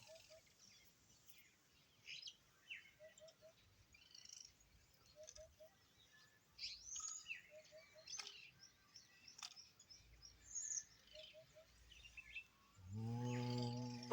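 Faint outdoor bird calls: scattered chirps and whistled sweeps, with a short three-note call repeating every two to three seconds. Near the end a low droning tone with overtones comes in.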